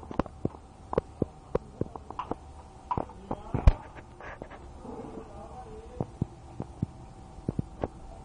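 Irregular sharp knocks and taps, roughly one or two a second, the loudest a little past halfway, over a faint steady hum.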